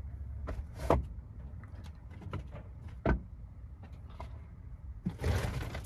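A door in a camper van being opened: a click about a second in and a sharper knock about three seconds in, then a short rushing scrape near the end.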